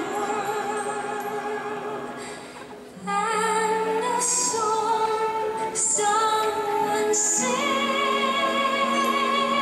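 Music with a woman singing long held notes with vibrato in an operatic style. It fades lower just before three seconds in, then a new phrase starts loudly.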